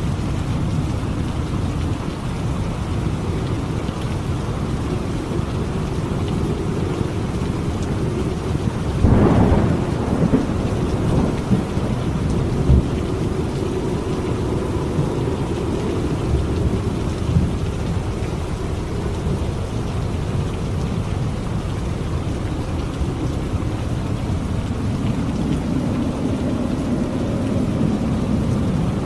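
Steady rain on a surface with thunder: a loud clap and rumble about nine seconds in, then a few smaller rumbles.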